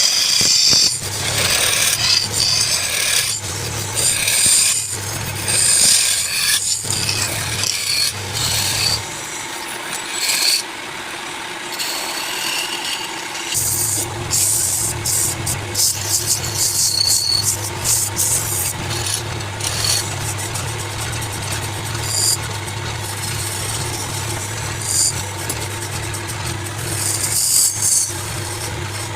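Wood lathe running with a turning tool cutting and scraping the spinning wood, giving an uneven rasping over the motor's steady hum. The hum drops out for a few seconds about a third of the way in, then returns.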